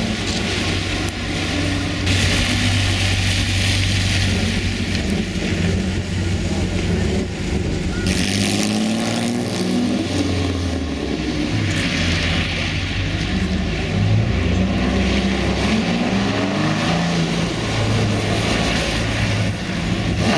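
Classic Jaguar racing car's straight-six engine being driven hard, its pitch climbing and dropping again and again through the gear changes. A hiss of tyres on the wet road swells at times.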